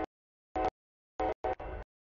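Short clipped fragments of a locomotive air horn chord, chopped apart by dead silence: four brief snatches, with a pair close together about a second and a half in.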